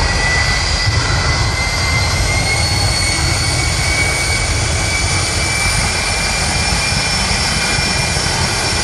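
Jet engine of a jet-powered show vehicle running steadily at high power: a loud low rumble with a high turbine whine that slowly rises in pitch.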